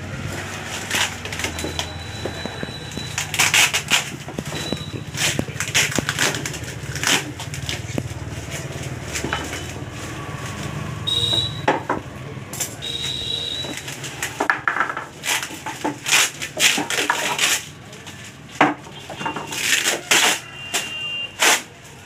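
Wooden cricket bats knocking and clattering against one another, with their plastic wrapping crinkling, as a bundle of new bats is handled. Sharp knocks come irregularly throughout, with a low steady hum under the first part.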